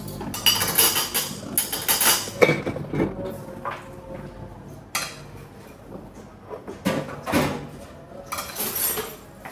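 Cutlery clinking against plates and dishes in irregular, scattered clinks, as at a meal.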